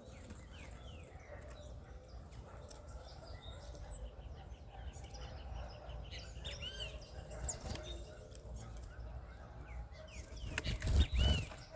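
Small birds calling with short, arched chirps repeated every few seconds, over a low background rumble. A louder burst of noise, like a brief rustle or flutter, comes about eleven seconds in.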